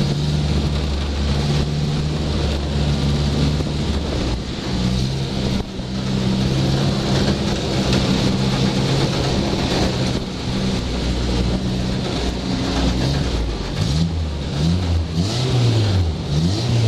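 Stock car engine running hard at race speed, its pitch holding steady, then rising and falling several times near the end as the throttle is worked.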